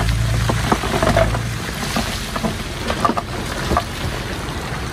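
A heavy diesel machine running with a low steady hum, with scattered knocks and rattles; the engine hum drops away about a second and a half in, leaving the knocks over a hiss.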